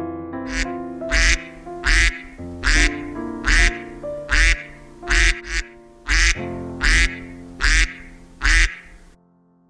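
A duck quacking about a dozen times in an even series, a little more than one quack a second, over light background music.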